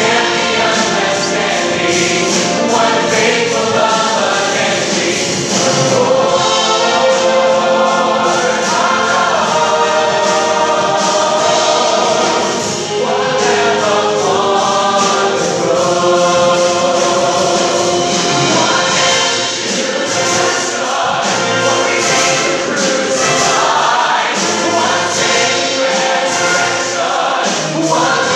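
Large mixed choir singing with orchestra accompaniment, a live choral-orchestral performance.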